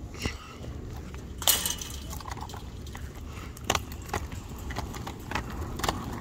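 Quad roller skate wheels rolling on a concrete sidewalk: a steady low rumble broken by several sharp clacks, the loudest about a second and a half in.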